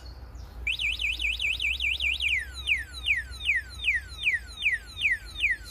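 DYU A5 folding e-bike's built-in anti-theft alarm going off because the locked bike has been moved. About half a second in, its electronic siren starts with a fast warble, then switches to repeated falling sweeps, about two a second.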